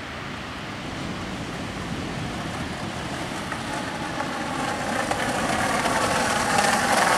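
Skateboard wheels rolling over pavement, a steady rolling noise that grows louder as the board comes closer.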